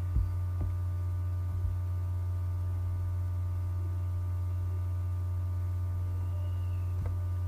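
Steady low electrical hum with fainter steady tones above it, and a few faint mouse clicks: one just after the start, two more within the next second and a half, and one near the end.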